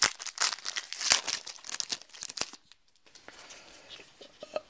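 Foil wrapper of a football trading-card pack crinkling and tearing as it is ripped open by hand, a dense crackle that stops about two and a half seconds in, followed by a few faint rustles as the cards are pulled out.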